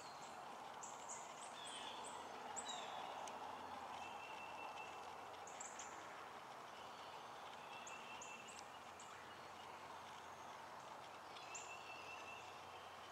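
Faint woodland ambience: small songbirds giving clusters of short, high, falling chirps, with a few thin held whistles and one falling whistle, over a soft steady hiss.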